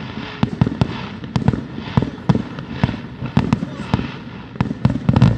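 Aerial fireworks shells bursting in a rapid, irregular string of bangs and crackles, several a second, with the loudest bang near the end.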